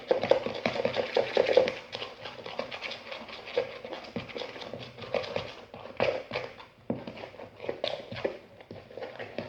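PVA-glue slime being stirred in a bowl as laundry-detergent activator is worked in: a run of quick sticky squelches and clicks, busiest in the first two seconds, then sparser.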